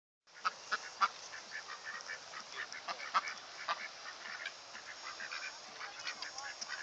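A flock of ducks and American coots crowding for food, a chorus of many short, overlapping quacks and clucks.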